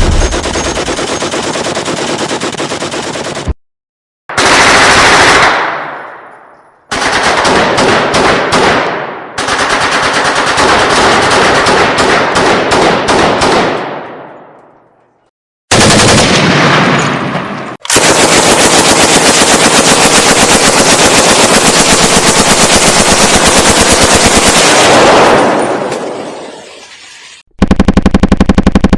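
Machine gun firing in a string of separate sustained bursts of rapid shots, several trailing off into fading echoes. The longest runs about ten seconds, and another burst starts near the end.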